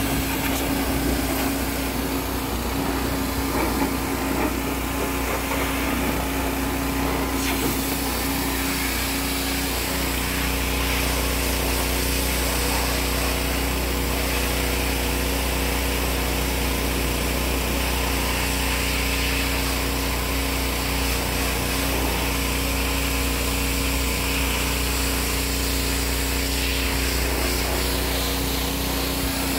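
Pressure washer running steadily, its water jet hissing against a semi truck's wheel and chrome fuel tank.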